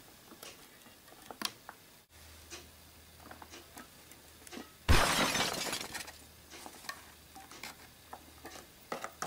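Scattered faint clicks and taps, then a sudden crash-like noise about five seconds in that fades over about a second.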